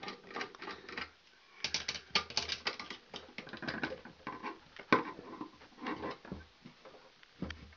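Irregular small metal clicks and scraping as the hot wire is fastened into the terminal of a pull-out disconnect, with one sharper click about five seconds in.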